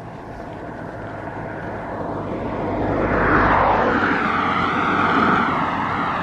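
An SUV driving past close by on an asphalt road: its tyre and engine noise swells to its loudest about three seconds in as it passes, then slowly fades as it drives away.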